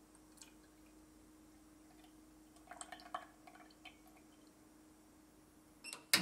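Heavy cream poured from a carton into a small enamel milk pan, trickling and dripping. Near the end there is one sharp, loud click at the portable gas stove as the pan goes onto its burner.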